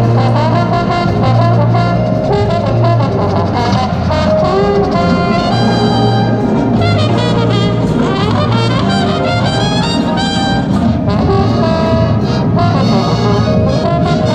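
Drum and bugle corps brass line playing a piece with the full corps, loud and continuous, in many held and moving notes.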